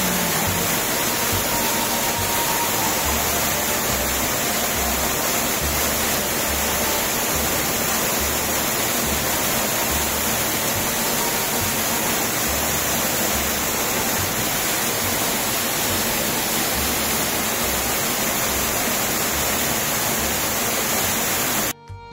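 Small mountain waterfall pouring over rock into a pool: a steady, loud rush of falling water. Just before the end it cuts off suddenly and accordion music begins.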